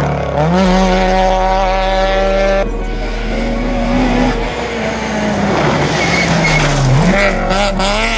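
Rally car engines at full throttle, revving up and dropping back through gear changes, first a Peugeot 205 and then a Citroën Saxo sliding on gravel. The sound cuts abruptly from one car to the next about three seconds in.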